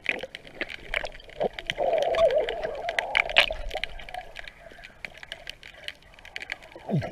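Underwater sound through a submerged camera: a steady crackle of sharp clicks, with a louder gurgle of bubbles from about two to four seconds in.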